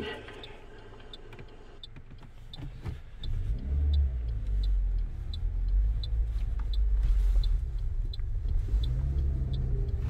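A car's engine and road rumble heard from inside the cabin as the car pulls away and gathers speed. The rumble grows louder about three seconds in, and a light regular ticking runs on top of it at about three ticks a second.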